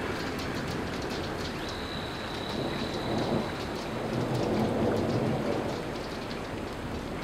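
Steady rain with a low rumble of thunder that swells about four to five seconds in.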